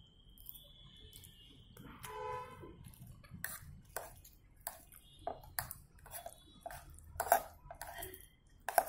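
Metal fork and knife clinking and scraping against a plate while cutting into a baked eggplant and cheese dish, in a scatter of sharp irregular clicks. A brief pitched hum about two seconds in.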